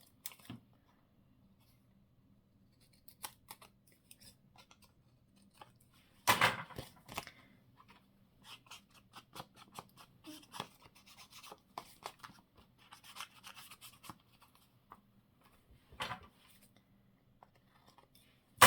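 Scissors cutting paper and card, trimming off small scraps: irregular short snips and rustles, with louder ones about six seconds in and again around sixteen seconds.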